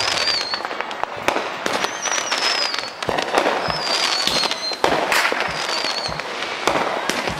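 Fireworks going off: a run of sharp pops and crackles, with about four high whistles that glide down in pitch.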